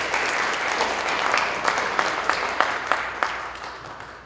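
Audience applauding, many hands with a few sharper single claps standing out, dying away near the end.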